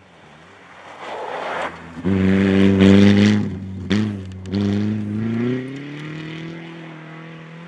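Ford Fiesta rally car's engine pulling hard as the car comes through the corner, with brief breaks in the engine note about three and a half to four and a half seconds in, then the note slowly falling as it drives off. The sound cuts off suddenly at the end.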